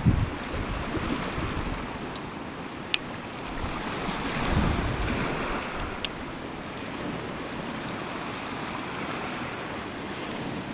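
Small waves breaking and washing over a pebble and seaweed shore, a steady surf hiss that swells briefly about four seconds in. Two faint clicks come through, a few seconds apart.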